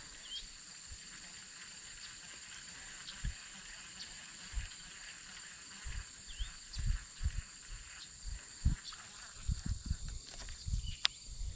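Crickets chirping steadily in a high-pitched insect chorus. From about six seconds in, irregular low thumps are heard, with one sharp click near the end.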